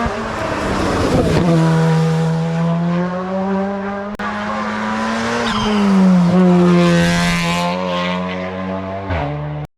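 Race car engine running hard at high revs, its pitch dropping at gear changes about a second and a half in and again around six seconds in. The sound cuts off abruptly near the end.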